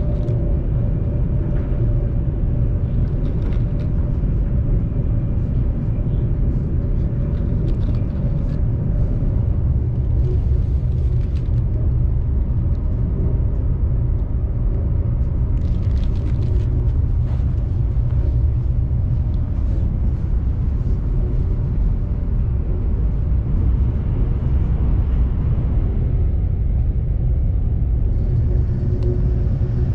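CRH high-speed train running at speed, heard inside the passenger car: a steady low rumble with a faint hum above it.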